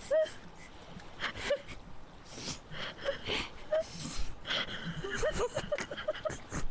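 A cat making a string of short, high mews and chirps, each bending up and down in pitch. The calls come scattered through the stretch and bunch together near the end, with soft noisy rustles between them.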